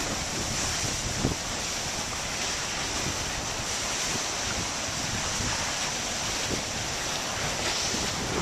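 Broken river ice drifting past in a packed flow: a steady hiss of ice and water, with a few faint knocks. Wind rumbles on the microphone.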